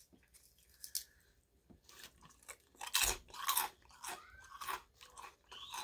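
Close-up crunching and chewing of a crisp chip, with a few small mouth clicks at first and loud crunches from about three seconds in.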